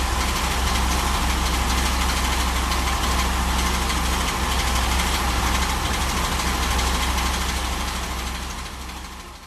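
Honda VFR800's V4 engine running steadily at idle, fading out near the end.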